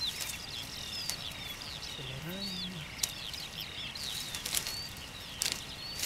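Songbirds singing, a steady stream of short, high whistled chirps, with a few sharp rustles from hands working through grass and strawberry plants as wild strawberries are picked.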